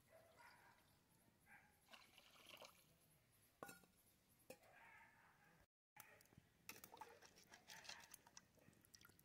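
Near silence, with a few faint clinks of steel cookware being handled and a brief total dropout about two-thirds through; faint scattered ticks follow near the end.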